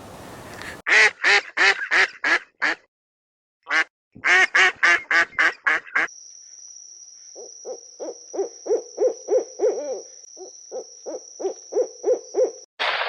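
Duck quacking in rapid runs of harsh quacks, about four or five a second, with a short break between runs. About halfway through, a lower-pitched series of calls at about three a second begins under a steady high-pitched whine.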